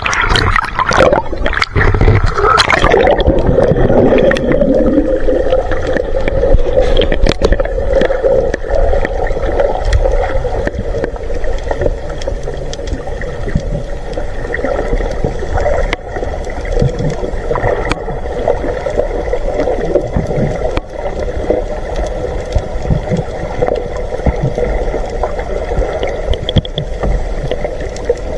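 Splashing as the camera plunges into the sea, then muffled underwater sound with a steady hum.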